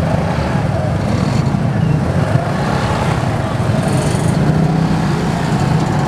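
Motor vehicles running with a steady low engine rumble.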